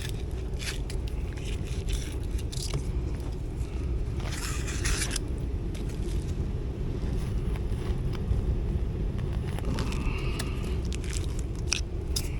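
Air handler blower running with a steady low rush of air, over which come scattered clicks and scrapes of hands working on the unit, including a longer scrape about four seconds in.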